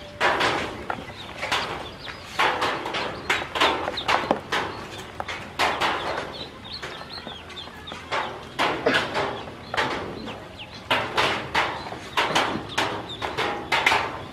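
A tubful of yellow ducklings peeping, over a steady patter of sharp taps and knocks as their bills and feet hit the plastic tub.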